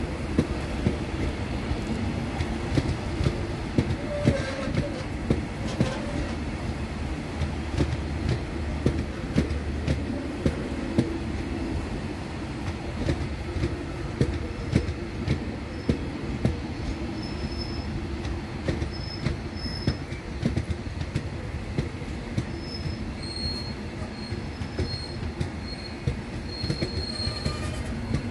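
Rovos Rail passenger coaches rolling past, their wheels rumbling and clicking over the rails in a steady run of knocks. From about halfway, short high-pitched wheel squeals come in, more often near the end.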